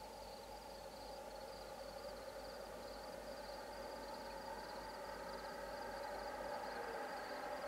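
Approaching BNSF EMD diesel locomotives hauling a loaded coal train: a steady, distant engine hum that grows gradually louder as the train comes closer, over a high, pulsing chirp of insects.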